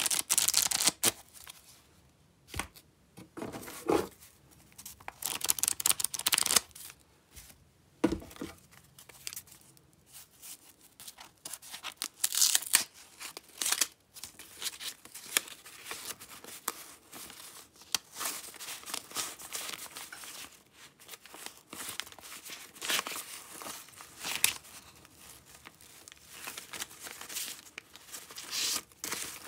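Old paper banknotes handled by hand: irregular bursts of rustling and crinkling as bundles are riffled and fanned, with a paper wrapping band torn off a bundle.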